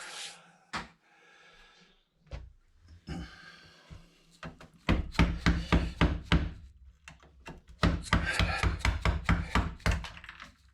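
A hand tool knocking and scraping against a computer motherboard as components and debris are pried off it: a quick run of sharp knocks about halfway in, a short pause, then a denser run of knocks and scrapes.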